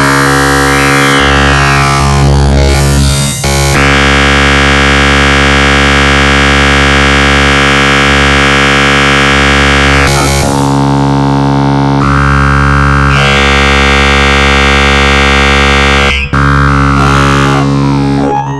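Dark MIDI rendering of a Samsung Galaxy ringtone: huge numbers of synthesized notes sounding at once as a loud, noisy wall of held chords. The chords shift in blocks every few seconds.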